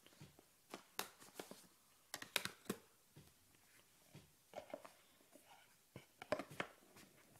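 Hands handling a phone box and its packaging on a table: scattered clicks, taps and short rustles, in small clusters about one, two and a half, and six and a half seconds in.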